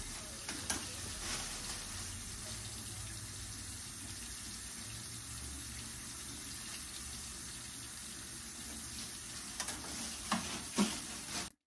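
Water running steadily from a bathroom sink faucet into the basin, with a few light clicks near the end.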